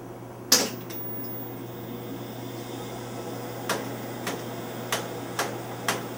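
Sharp clicks of switches being worked on the front panel of an RCA TR-70 quadruplex videotape recorder while its supply voltages are checked: one loud click about half a second in, then a run of about five clicks roughly half a second apart near the end. Under them a steady low electrical hum.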